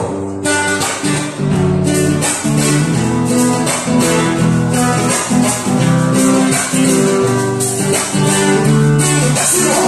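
Band music: an instrumental passage of a song, led by strummed guitar over a steady rhythm.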